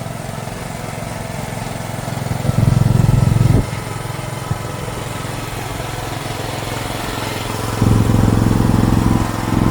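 A 1-ton mini excavator's small engine running steadily as the machine is driven. Its note swells louder and heavier twice: for about a second starting two and a half seconds in, and again for a couple of seconds near the end.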